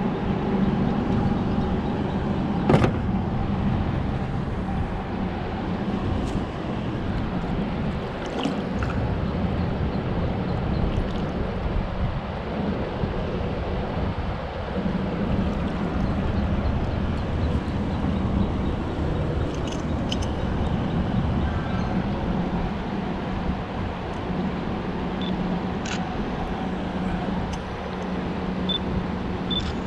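A boat motor runs steadily with an even hum, over a rough rush of wind and water noise. There is a single sharp click about three seconds in.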